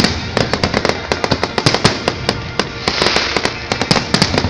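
Fireworks display: a dense, irregular run of sharp bangs and crackles, several a second, over a continuous hiss of crackling.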